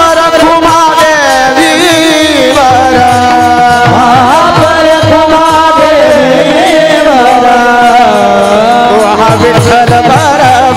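Varkari kirtan devotional music: a male voice sings an ornamented melodic line with sliding pitches, over steady strokes of a barrel drum (mridang) and the jingle of taal hand cymbals.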